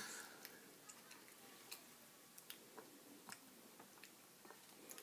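Faint, irregular little clicks and smacks of a sleeping toddler's mouth chewing food.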